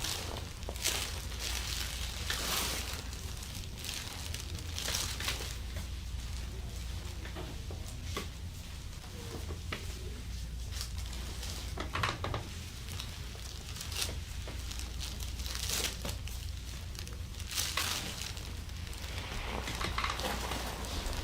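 Rustling and crinkling of a treatment table's paper cover and clothing as hands work over a patient during a massage, in irregular swishes every second or two over a steady low hum.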